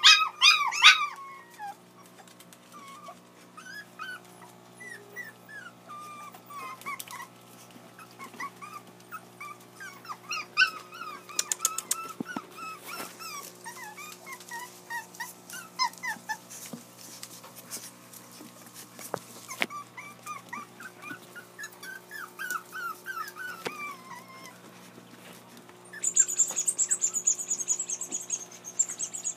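Several young puppies whimpering and whining in short, high-pitched cries that go on and off, loudest in the first second or so. For the last three seconds a shrill, high-pitched squeal joins the whining.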